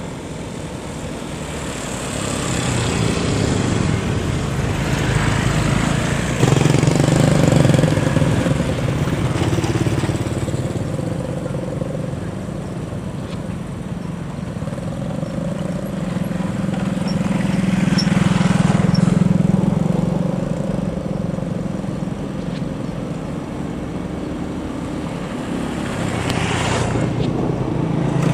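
Diesel locomotive engine running as a passenger train approaches, a steady low rumble with a held hum that swells and fades and grows louder near the end as the locomotive draws close. Earlier on, engine noise from traffic waiting at a level crossing is mixed in.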